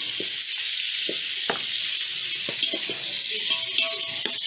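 Chicken pieces sizzling in a metal pot, a steady high hiss, with a spoon stirring and scraping against the pot now and then.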